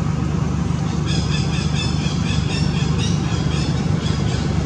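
Baby macaque squealing in a rapid series of short, high cries for a couple of seconds, over a steady low rumble.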